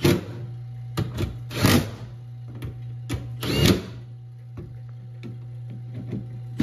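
Small cordless power driver spinning bolts in, three short bursts of whirring with light clicks between, over a steady low hum.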